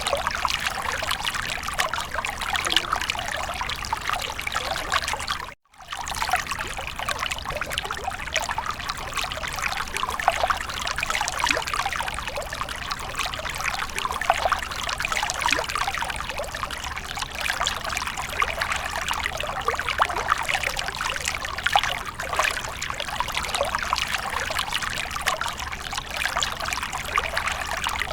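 Water fountain splashing and trickling steadily. It cuts out for a split second about five and a half seconds in.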